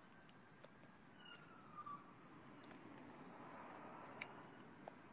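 Near silence: faint outdoor night ambience with a steady high cricket trill, a faint wash that swells and fades about halfway through, and a few faint clicks.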